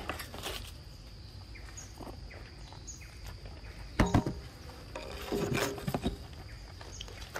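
A baby macaque handling and eating a piece of ripe fruit on concrete: scattered small clicks and rubbing, a sharp thump about four seconds in, then a louder spell of handling a second later. A steady high insect whine runs underneath.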